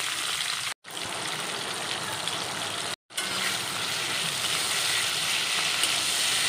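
Tomato pieces and whole spices sizzling in hot oil in a kadai as they are stirred with a metal spatula, mixed with steady heavy rain. The sound cuts out completely for a moment twice.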